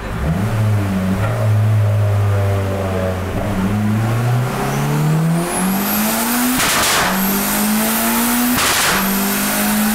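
Turbocharged Honda Civic VTi four-cylinder accelerating hard through the gears, its engine note climbing steadily with a high turbo whistle rising in. It shifts up twice, a short burst of noise at each shift as the flat-shift cut works, then the pitch drops and climbs again.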